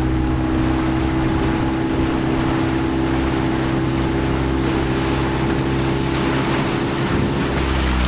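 Motorboat engine running at a steady pitch, with water rushing and splashing past the hull.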